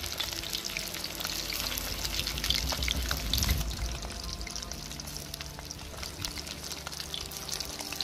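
Whole tilapia and ripe plantain slices frying in hot oil in a metal pot: a steady crackling sizzle of many fine pops, busiest in the first few seconds. Background music with steady held notes comes in about halfway through.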